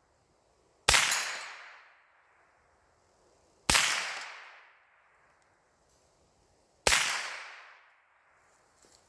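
Three single shots from an AR-15 fitted with a CMMG .22 LR conversion kit, spaced about three seconds apart, each followed by a fading echo.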